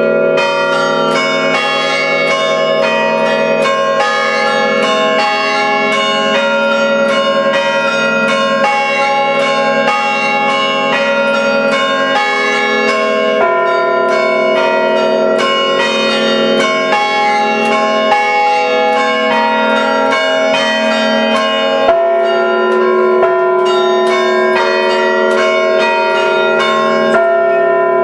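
Five church-tower bells chimed by hand through rope pulls, in the traditional Valais manner. They are struck in a quick, continuous rhythmic pattern, several strokes a second, with the tones overlapping and ringing on.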